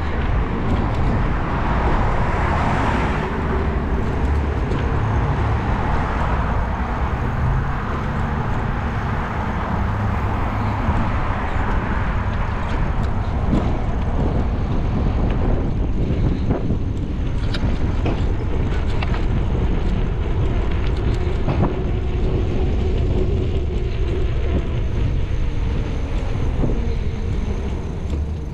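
Car driving along a city street: a steady low rumble of engine and road noise with surrounding traffic.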